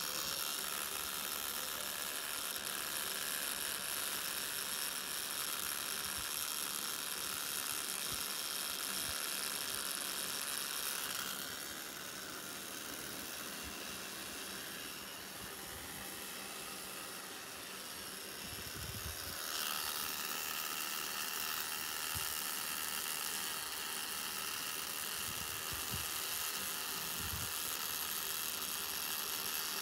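Electric tattoo machine buzzing steadily as it lines a tattoo on skin. For about eight seconds midway the sound changes and is a little quieter, then the usual buzz comes back.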